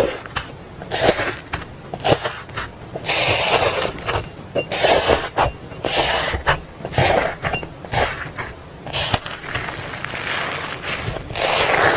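Slime being squished and pressed by hand: irregular sticky crackles and pops with short squelching pushes, a few every second.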